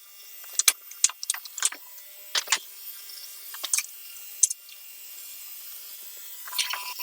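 Short, sharp clicks and light rattles of small parts and a cable being handled, about a dozen in the first four and a half seconds, then quieter.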